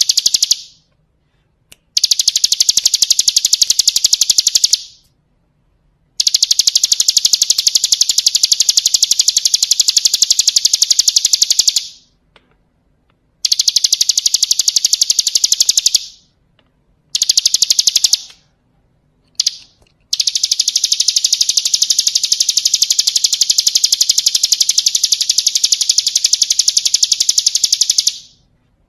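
Bar-winged prinia (ciblek kristal) singing a very rapid, high trill in long phrases separated by short pauses, the longest running about eight seconds near the end.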